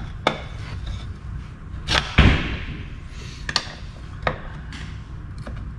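Screwdriver prying at a silicone-sealed housing joint on a 241 DLD transfer case: a string of sharp metal clicks and knocks as the blade bites and slips, the loudest about two seconds in, over a steady low hum.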